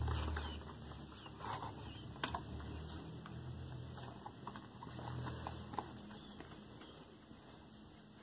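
Faint, scattered clicks and taps of babies handling a small plastic toy on a floor mat, over a low steady hum that fades away.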